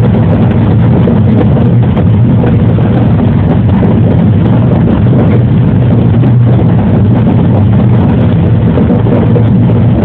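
JR 113 series electric train running steadily along the track, a constant loud rumble of wheels on rail with a low motor drone, heard from just behind the cab.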